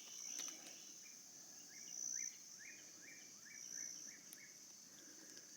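Faint woodland insect chorus: a steady high trill that swells louder three times. A quick run of about eight short bird chirps sounds in the middle.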